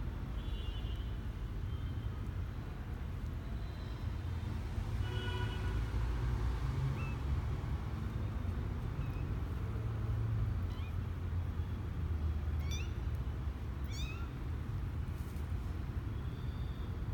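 Newborn kittens, twelve days old, mewing in a few short, high-pitched calls, the later ones rising in pitch, over a steady low background rumble.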